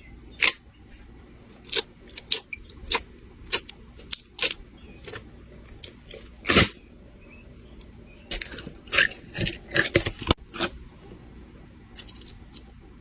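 Crunchy slime with gravel-like mix-ins being pressed and worked by hand, giving irregular sharp crunches and crackles, with a quick run of them about two-thirds of the way through.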